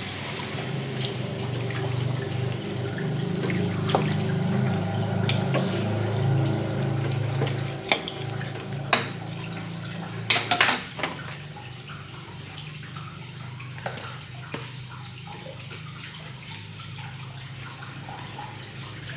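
Chicken pieces being stirred and turned in a steel wok of spiced cooking liquid with a metal ladle: wet sloshing of liquid and meat. There are several sharp clinks of the ladle against the wok between about eight and eleven seconds in, and the stirring is quieter after that.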